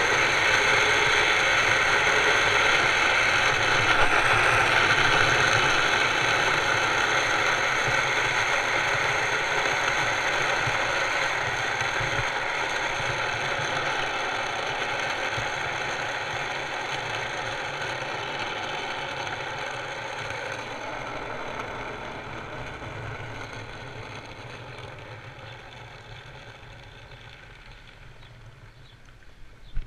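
Steel ball-bearing wheels of a homemade cart rolling on asphalt: a loud, coarse rolling rumble with a rattle. It fades gradually over the second half as the cart slows down.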